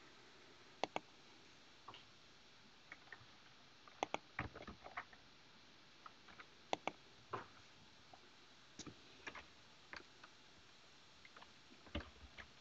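Sparse, irregular clicks of a computer mouse and keyboard, some in quick pairs.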